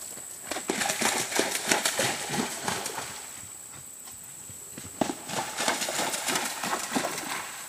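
A horse cantering, its hooves pounding in two runs of rapid beats. The second run opens with a sharp thud, about five seconds in, as the horse drops into water, and goes on with hooves splashing through it.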